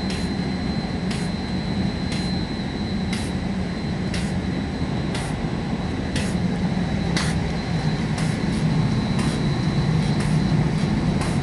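Sorbini roller coater for lacquering panels from below, running with a panel feeding through its rollers. There is a steady low hum, a thin high whine, and a sharp tick about once a second.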